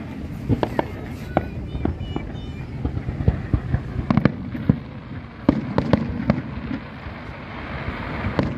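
Fireworks going off in an irregular string of sharp bangs and crackles, heaviest in clusters about four seconds in and again between five and a half and six and a half seconds.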